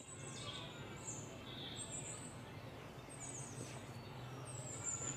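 Faint outdoor ambience with birds chirping now and then over a low steady hum.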